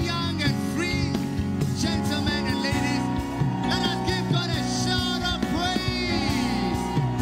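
Live church worship music: a band with sustained bass notes playing under singing voices.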